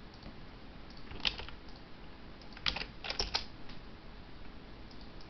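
Computer keyboard keystrokes: a single click about a second in, then a quick run of several clicks around three seconds in.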